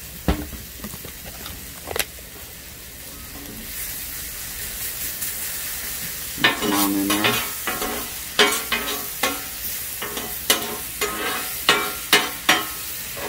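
Green peppers and onions sizzling in butter on a hot steel Blackstone griddle. A couple of sharp clacks come in the first two seconds. From about six seconds in, metal spatulas scrape and clack against the griddle top over and over as the vegetables are tossed.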